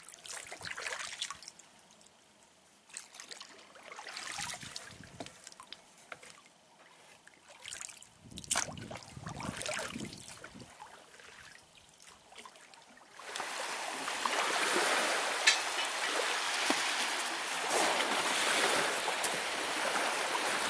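Shallow seawater splashing and trickling in irregular bursts as someone wades through it. After about thirteen seconds it gives way to a steadier, louder rushing noise.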